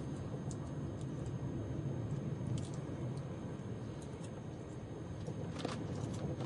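Steady low rumble of a Tilt Train passenger carriage running along the track at speed, heard from inside the cabin, with a few faint clicks and ticks.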